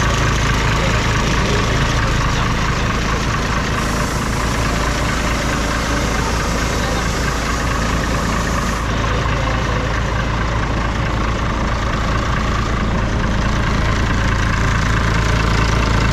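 Diesel engine of a Shaktiman (license-built MAN 415) military truck idling steadily.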